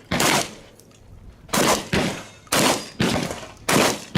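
Shotgun shots fired in a string about a second apart, five of them, the last right at the end, each with a short ringing tail.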